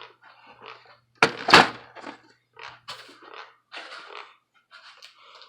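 An HP Envy 4520 inkjet printer is set down on a counter with a heavy thud about a second in, followed by lighter knocks and scraping as it is shifted into place.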